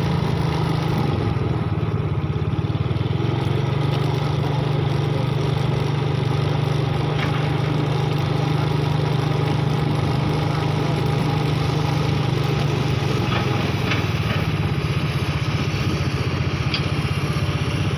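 Motor vehicle engine running with a steady low drone while travelling along a freshly paved road, with a few faint ticks in the second half.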